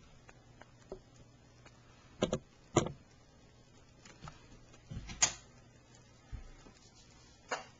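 A handful of short, sharp clicks and knocks against a quiet background: a quick pair about two seconds in, another just under three seconds in, the loudest a little after five seconds in, and one more near the end.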